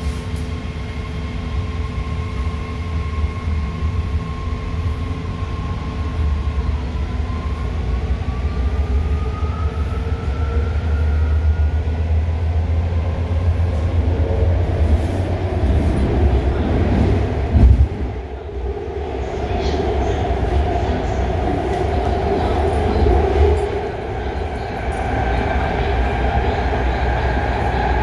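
Inside a moving BART 'Fleet of the Future' rapid-transit car: the train runs with a steady low rumble from the wheels and track and a thin electric whine that rises in pitch about a quarter of the way in. Past the middle the running noise grows rougher, with one sharp knock.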